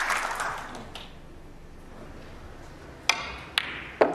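Applause dying away, then a snooker shot: three sharp clicks about half a second apart as the cue strikes the cue ball and the balls collide. The last is a fuller knock as the potted ball meets the pocket.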